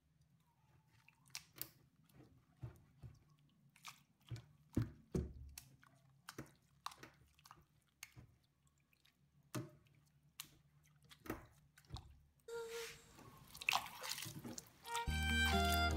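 Grated coconut being stirred and squeezed by hand in water in a metal bowl, pressing out coconut milk: scattered wet drips and squelches, which grow louder and denser about twelve seconds in. Background music comes in near the end.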